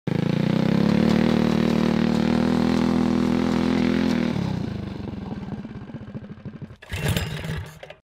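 Small single-cylinder go-kart engine running at a steady high speed, then dropping off about four seconds in and slowing to an uneven, fading putter. A short burst of noise comes near the end.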